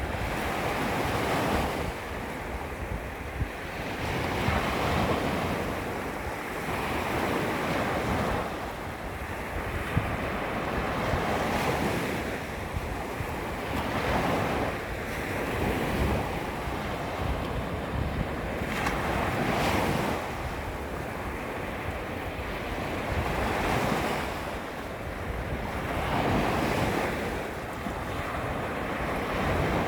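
Small waves lapping against the shoreline, each one washing in and easing off every two or three seconds, over a low rumble of wind on the microphone.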